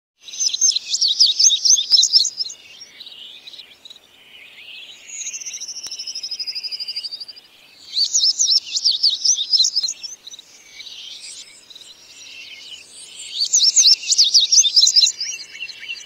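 Male indigo bunting singing: three bright songs of quick, high, mostly paired notes, each about two seconds long, with pauses of several seconds between them. A softer, long falling trill fills the first pause, and a lower trill starts near the end.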